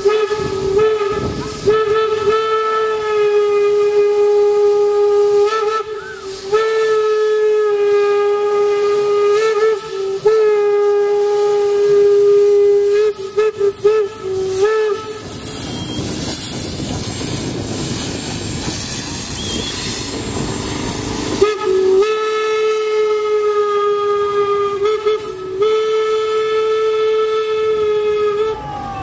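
Steam locomotive whistle sounding long, steady blasts of several seconds each, broken by short gaps. About halfway through the whistle stops for several seconds and a loud rushing hiss of steam takes over as the locomotive passes, then the whistle blows again near the end.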